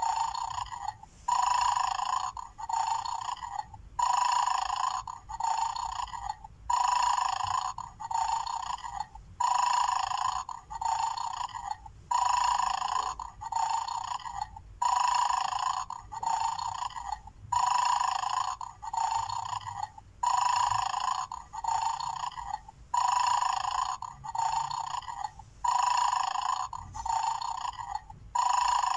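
Electronic snoring sound effect from a battery-powered 'Mad Dog' toy bulldog's small speaker, looping evenly. Each snore is a louder breath followed by a softer one, repeating about every three seconds. It is the sign that the guard dog is in its 'asleep' state and not yet triggered.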